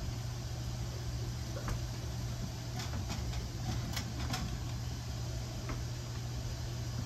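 A steady low hum, with a few light clicks and clinks from work at a kitchen counter, several close together around the middle.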